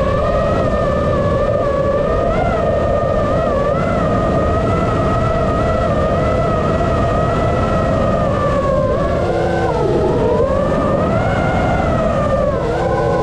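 FPV racing drone's brushless motors and propellers whining, several tones rising and falling together with the throttle over a rough rushing noise; the pitch dips and swings more widely about two thirds of the way in.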